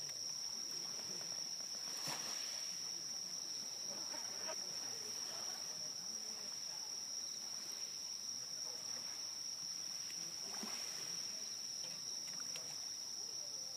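Insects singing in a steady, high-pitched chorus: one continuous note without breaks.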